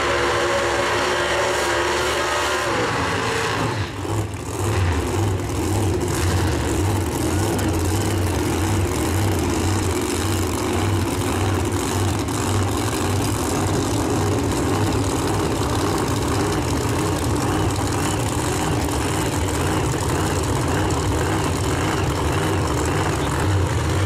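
Drag race car engines running with a deep, evenly pulsing low rumble.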